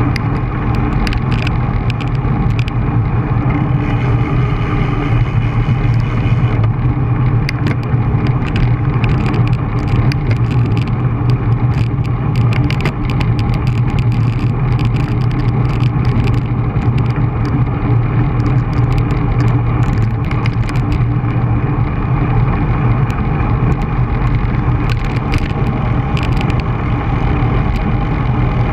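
Steady loud rush of wind and road noise on a bicycle-mounted action camera moving fast on asphalt, with frequent sharp rattling clicks.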